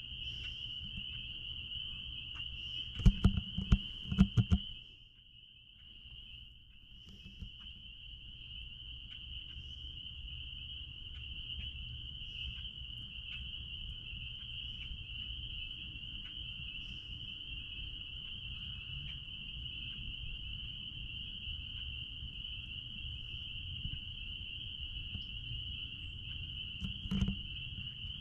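Dense chorus of spring peepers: a steady high-pitched peeping from many frogs that merges into one continuous ring, over a low rumble. A cluster of loud knocks and bumps comes about three seconds in, and one more knock near the end.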